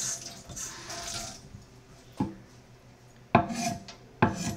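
Kitchen tap water running and shut off at the start, then three sharp clinks of kitchenware about two, three and a half and four seconds in, the middle one loudest.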